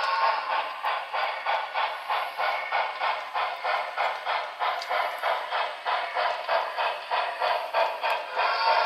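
Broadway Limited Reading T1 4-8-4 model steam locomotive's sound system playing an even beat of steam exhaust chuffs, about four to five a second, as the locomotive runs.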